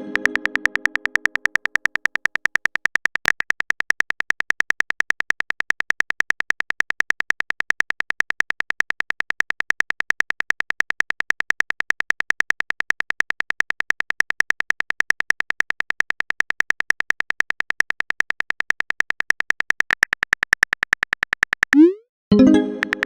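Simulated emergency alert tone: a high-pitched electronic tone pulsing rapidly and evenly, many beeps a second. A short rising glide and a fading low chime sound at the start and again near the end.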